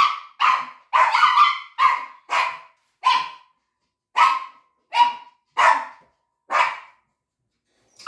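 A dog letting out a rapid run of short, high-pitched yelps, about ten in all, in protest at having its nails trimmed; the yelps stop about seven seconds in.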